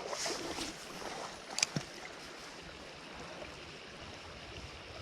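Small creek water running steadily, with a short sharp click about a second and a half in.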